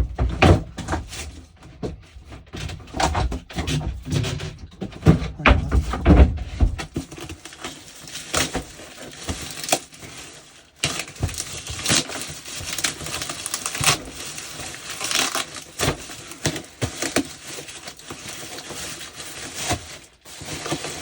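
A plastic postal bag being handled and pulled open, crinkling and crackling irregularly. Heavy thuds and knocks from the parcel being handled in the first six or seven seconds, then lighter, sharper crinkling.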